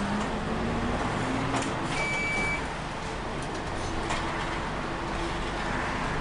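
City bus engine and road noise heard from inside the cabin while the bus drives, the engine pitch rising during the first second and a half as it pulls away or accelerates. A brief high beep sounds about two seconds in.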